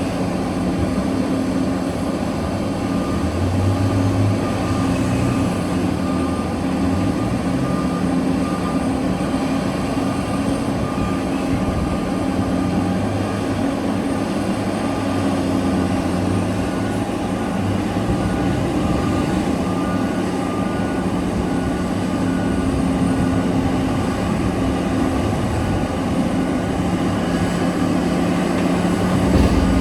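Heavy mining machinery working: the large diesel engines of a mining excavator and haul truck running under load with a steady low drone, the pitch shifting briefly in the first third.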